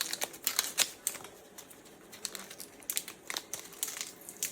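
Plastic packaging crinkling, with bursts of sharp clicks and crackles, as it is handled and unwrapped.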